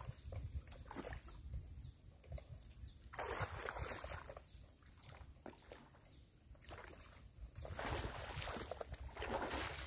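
A short, high, falling chirp repeated evenly about twice a second, over a faint steady high hum. Two louder stretches of rushing noise come about three seconds in and again from about eight seconds in.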